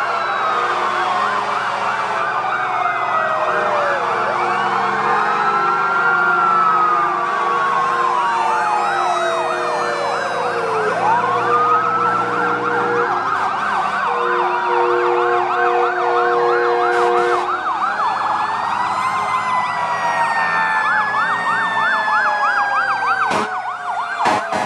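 Several fire engine sirens sounding at once as the trucks pass, mixing slow rising-and-falling wails with fast yelps. Long steady air horn blasts come in about a third of the way through, and a couple of sharp clicks sound near the end.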